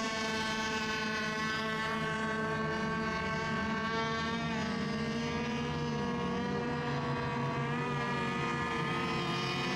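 Several radio-controlled racing boats running together on the water while milling before the start, a steady whine made of overlapping tones that drift slightly in pitch.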